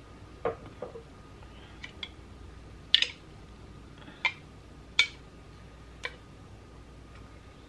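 A utensil stirring in a glass jar, knocking against the glass: about eight sharp, irregular clicks, the loudest about three and five seconds in.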